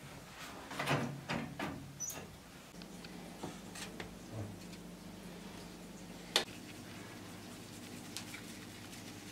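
Sticks of firewood knocking and clattering as they are pushed into the firebox of a metal wood-burning stove, a handful of knocks in the first two seconds. After that, quieter handling sounds over a faint steady hum, with one sharp click.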